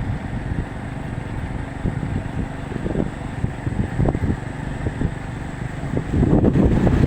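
Strong sea wind buffeting the microphone: a steady low rumble with gusts, growing louder about six seconds in.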